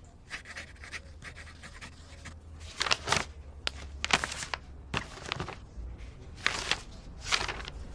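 A pen scratching across paper as a signature is written, then sheets of paper rustling in a series of short rustles as the pages are handled and leafed through.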